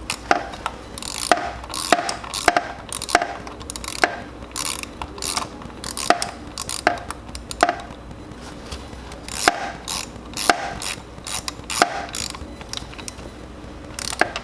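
Ratchet wrench clicking in short irregular strokes as a spark plug is turned down and tightened.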